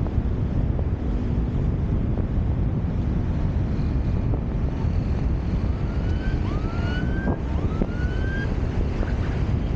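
Steady wind rumble on the microphone and road noise from a car driving in city traffic. In the second half, a siren sounds three rising whoops.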